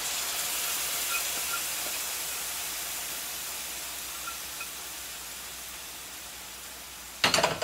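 Sauce poured into a hot frying pan of browned chicken pieces, hissing and sizzling as it hits the hot oil; the sizzle slowly dies down. A sharp knock sounds near the end.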